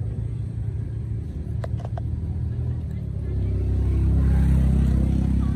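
Low rumble of a motor vehicle running, swelling to its loudest about four seconds in and easing off near the end, as of a vehicle passing. Three faint clicks come close together about two seconds in.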